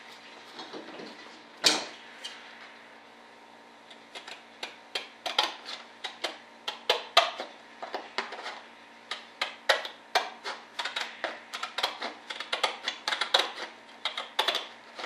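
Scissors snipping out a thin sheet part: a quick, irregular run of sharp clicks, a few a second, starting about four seconds in, after a single knock near the two-second mark.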